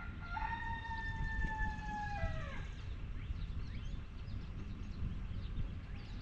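A rooster crowing once: one long call of about two seconds that drops in pitch at the end. Faint small-bird chirps sound behind it.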